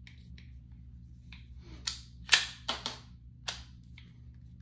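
A GSG-1911 .22 LR pistol being handled, giving a few sharp clicks and clacks. The loudest comes a little past the middle.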